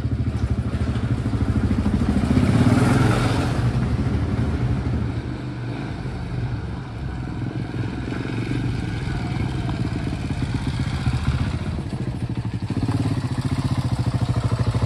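Supermoto motorcycle engine running on a gravel track, its steady exhaust note louder about two to four seconds in and again near the end as the bike comes close.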